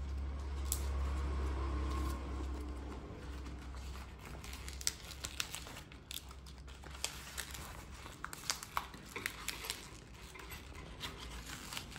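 Fresh banana leaf being folded and pressed into a parcel by hand, rustling and crinkling, with many short crackles from about a third of the way in. A low steady hum sits underneath in the first few seconds.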